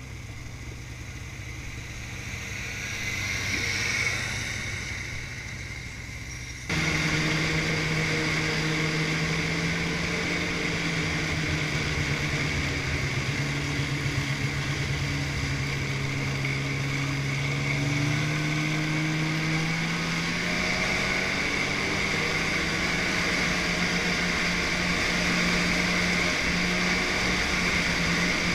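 Snowmobile engine running as the sled travels along a snow trail. About seven seconds in it gets suddenly louder and then holds a steady drone, its pitch shifting a little with the throttle.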